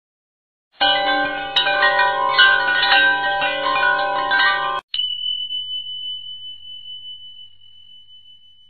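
Intro sound effect of shimmering, bell-like chimes for about four seconds, cut off abruptly, then a single high ringing tone that slowly fades away.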